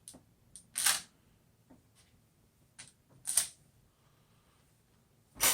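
Light clicks and three short scrapes of small screws being handled against a plastic speaker casing.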